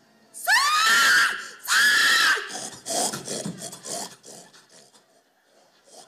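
A woman's hog call shrieked at full voice into a microphone: two loud, high calls, the first sliding sharply up in pitch and the second held, then a quick run of short, choppy calls that die away.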